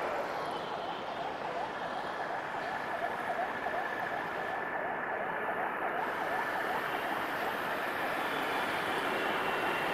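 A siren warbling quickly up and down over a steady din of road traffic, fading out near the end.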